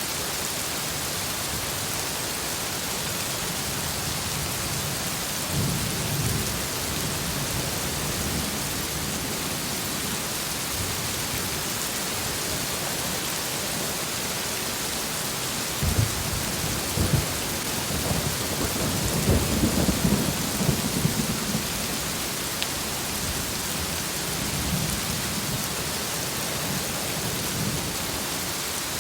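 Heavy rain falling steadily, with thunder rumbling several times: a couple of sharp cracks about halfway through, then a longer rolling rumble.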